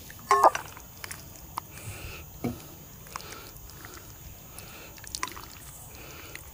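A ladle scooping stew out of a cast-iron Dutch oven into a small metal pot: sharp clinks and knocks of the ladle against the pots, the loudest about half a second in, with the stew sloshing between scoops.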